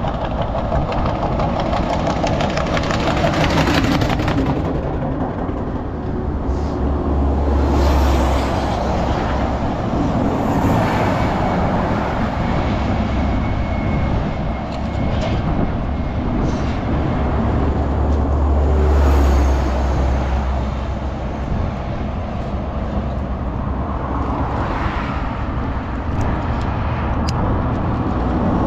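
Steady road noise with several vehicles passing, each one swelling up and fading away, over a constant low rumble.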